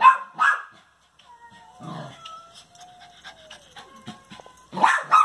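Small dog barking sharply: two quick barks at the start and a run of barks again near the end. In the quieter middle a thin, wavering cry slides down in pitch.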